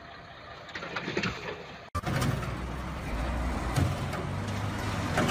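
Truck engine running; about two seconds in it breaks off abruptly and a louder, steadier low engine rumble takes over, with a few sharp knocks.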